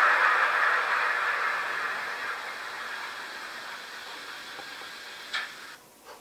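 A steady hiss fading gradually away, with a short sharp click about five seconds in.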